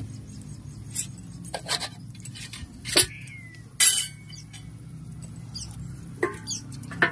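Stainless steel plate clinking and clattering as it is handled and set down: a handful of sharp metallic clinks, the two loudest about three and four seconds in, each followed by a brief ring.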